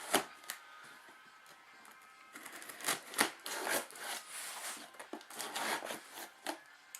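A cardboard shipping package being opened by hand: tape and packaging tearing and rustling, with sharp scrapes and clicks. It grows busier about two seconds in.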